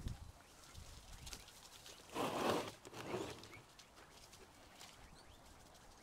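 Guinea pigs moving about in their pen: a thump at the start, then a rustle lasting under a second about two seconds in, with a few faint high chirps near the end.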